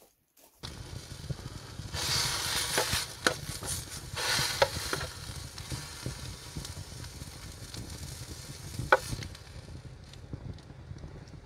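Beef tenderloin steak sizzling in a hot pan. The sizzle grows louder for a few seconds from about two seconds in, with sharp pops and crackles, and one more pop near the end.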